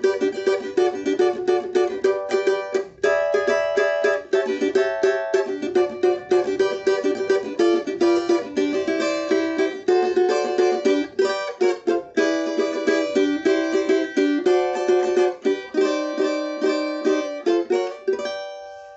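Steel-stringed cavaquinho strummed in a quick, steady rhythm, its chords changing every second or so. There is a brief break about three seconds in, and the last chord rings out and fades near the end.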